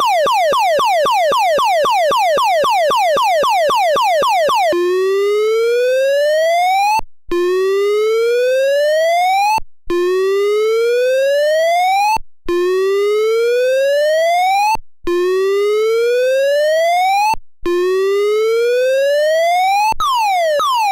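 Wolo Model 345 Animal House electronic car horn playing its built-in siren tones. It opens with a fast falling warble of about four sweeps a second. About five seconds in it changes to a slow rising whoop, each rise lasting about two and a half seconds with a brief break between. Near the end it switches to a quicker falling wail.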